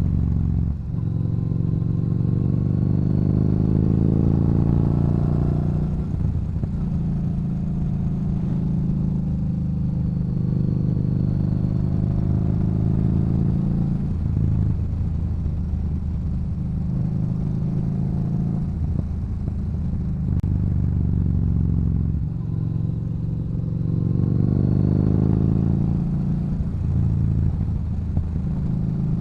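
Yamaha Bolt's air-cooled V-twin through a Cobra aftermarket exhaust, riding along: the revs climb twice, early and near the end, and fall back in between as the throttle is eased or a gear changes.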